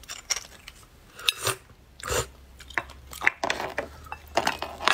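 Close-up eating sounds: a thin metal pick and spoon scraping and clicking against marrow bones, and bones knocking on the plate, in irregular short clicks.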